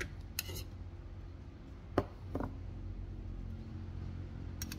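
A metal spoon clinking a few times against a china bowl and plate, a few short sharp clicks, over a steady low hum.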